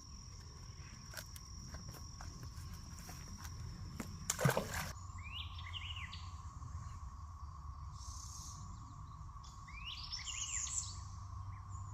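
Outdoor ambience of insects trilling steadily, with a bird calling twice in short descending chirps. A brief louder noise comes about four and a half seconds in.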